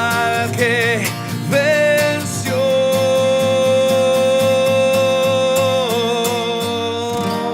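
Spanish-language worship song with a singer and band: short sung phrases at first, then one long held note from a few seconds in, over guitar and a steady beat.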